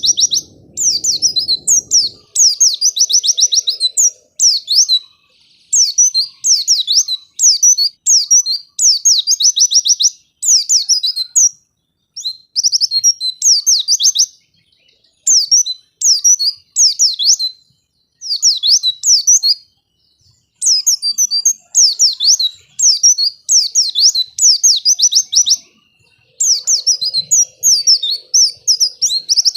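White-eye (pleci) singing a fast, high twittering song of rapid falling chirps, in short bursts with brief pauses, as a lure recording to set other white-eyes singing.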